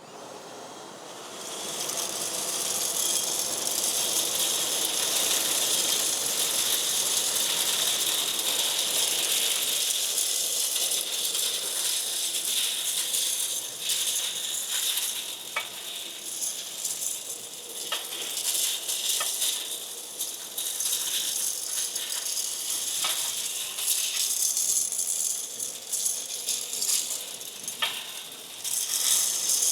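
Industrial vacuum with a 480-volt three-phase side channel blower running under suction while metal drill chips rattle up through the hose, with a few sharp ticks of chips striking. The sound builds over the first two seconds.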